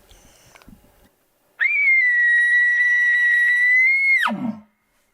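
An elk bugle: a single high whistle that starts about a second and a half in, holds steady for over two seconds, rises slightly, then drops steeply into a short low growl at the end.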